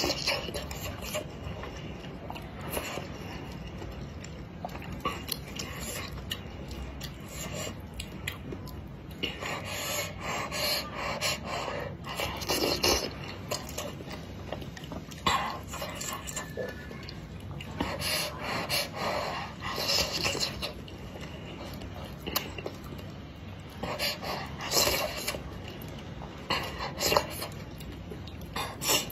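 Close-up eating sounds: spicy noodles and wontons slurped in repeated short noisy bursts, with chewing between.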